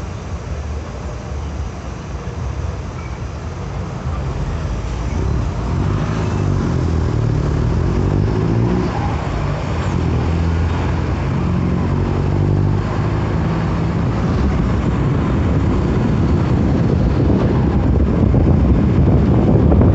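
Exhaust of a Mercedes-Benz OF-1721 Euro 5 bus's four-cylinder turbodiesel engine running, growing steadily louder, its pitch shifting up and down in steps.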